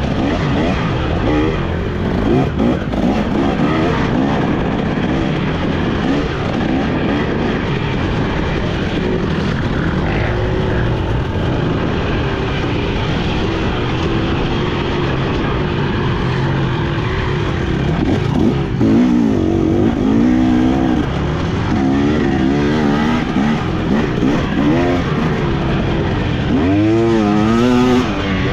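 Off-road motorcycle engine ridden hard, its pitch rising and falling continually with the throttle and gear changes, with quick rev swings about two-thirds of the way through and near the end.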